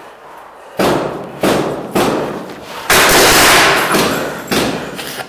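Paintball markers firing in an empty concrete factory building, very loud: three sharp shots about half a second apart, each with an echoing tail, then a longer, louder dense stretch of noise lasting over a second, and one more shot.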